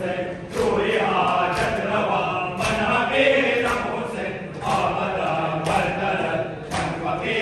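Male mourners chanting a Muharram lament together, with hand-on-chest matam strokes about once a second keeping the beat.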